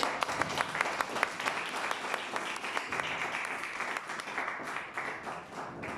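Audience applauding, dense clapping that thins out toward the end.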